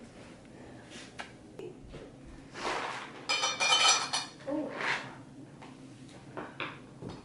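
Household handling noises: rustling and light knocks, with about a second of metallic clinking near the middle.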